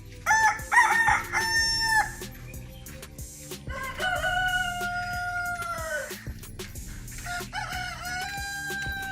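Roosters crowing three times in a row: a broken crow about half a second in, a long drawn-out crow around four seconds in, and another starting near the end.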